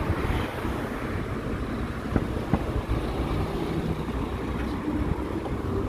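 Wind buffeting the microphone and low road rumble while riding on an electric scooter, with two sharp knocks about two seconds in.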